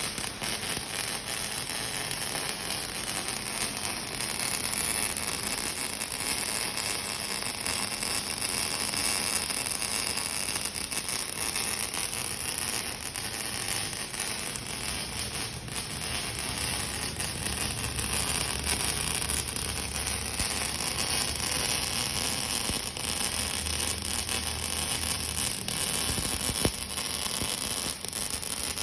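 MIG welding arc from an NB250E MIG welder, a steady crackling hiss with fine irregular crackle, and a low hum coming up about halfway through.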